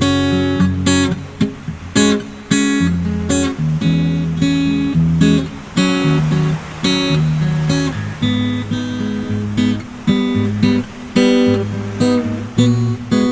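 Background music: acoustic guitar strummed in chords, with a steady rhythm of sharp strokes.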